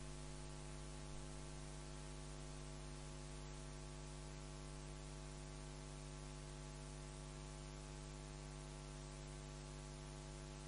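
Faint, steady electrical mains hum with a light hiss from the recording's audio chain.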